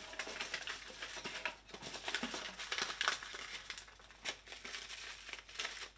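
Hands rummaging through plastic-wrapped snacks in a cardboard box, the wrappers rustling and crinkling with irregular small clicks.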